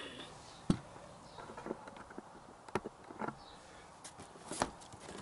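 A few sharp knocks and light clicks of objects being handled and set down on a garage floor, the loudest about a second in, with faint rustling between.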